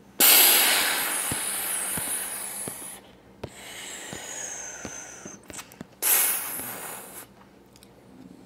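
Submarine diving sound effect: three bursts of hissing noise. The first is the longest and loudest, about three seconds. The second is softer, with a falling whistle. The third is short.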